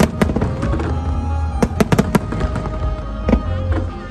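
Aerial firework shells bursting in a string of sharp bangs: a couple at the start, several in quick succession about a second and a half in, and one more near the end. Music plays underneath.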